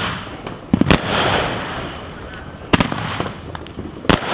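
Aerial fireworks going off: three sharp bangs, the first a quick double about a second in, then one near three seconds and one near the end, with a lingering rush of noise after the first.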